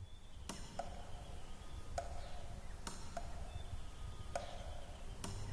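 About seven sharp clicks at uneven intervals, several followed by a short ringing note, over a low rumble.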